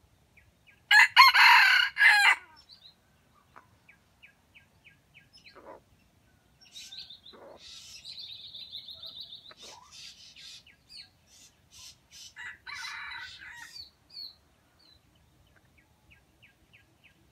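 A red junglefowl rooster crows once, loud and short, about a second in. Small birds chirp and twitter through the rest, with a second, fainter call around twelve seconds in.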